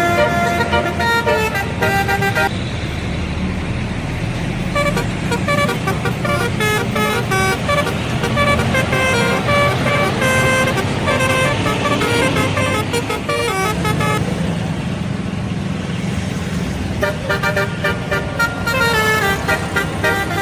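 Indonesian bus 'telolet' horns: multi-tone air horns playing quick runs of short notes that jump up and down in pitch, over the low rumble of bus engines.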